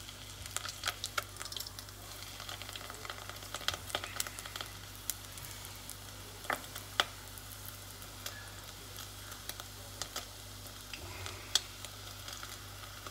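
A rolled flauta frying in a saucepan of hot oil: a steady sizzle with frequent sharp crackles and pops.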